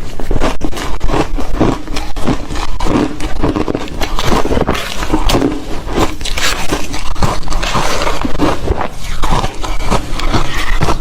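A person biting and chewing ice cubes: a dense, continuous run of loud crunches and cracks, several a second, with grinding between them.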